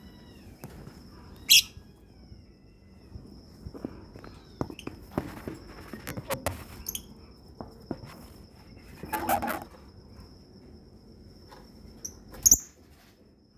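Lovebirds giving two short, loud, shrill chirps, one about a second and a half in and one near the end. Scattered clicks and knocks and a brief scratchy burst come in the middle, over a faint steady high whine.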